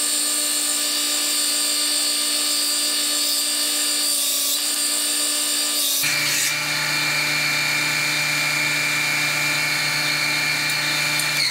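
Benchtop belt sander running steadily while cut steel pipe pieces are held against the moving belt to clean up their edges, a motor hum under a grinding rasp. The sound changes abruptly about halfway through, and near the end the motor winds down.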